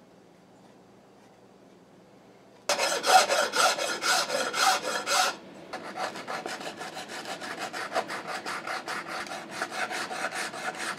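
Hand sanding: a sanding block rubbed in fast back-and-forth strokes over Bondo body filler on a wooden rifle stock. The strokes start about three seconds in after a quiet stretch, stop briefly halfway through, then go on a little softer.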